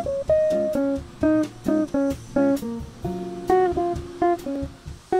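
Background music: a plucked guitar playing a quick melody of short notes, with a light beat underneath.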